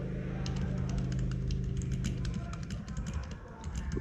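Typing on a UT47.2 40% mechanical keyboard with lubed Gazzew Bobagum switches and KAT Alpha keycaps: a quick, uneven run of keystroke clacks. Under it runs a low steady hum that stops about two and a half seconds in.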